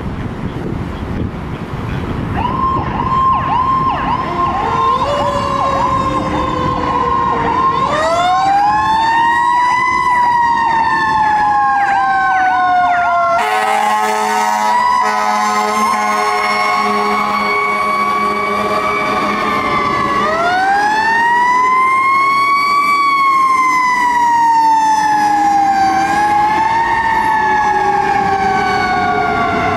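Fire apparatus sirens on an emergency run out of the station: an electronic siren warbling rapidly, then a mechanical siren winding up fast and coasting down slowly, twice, with a long steady horn blast in the middle.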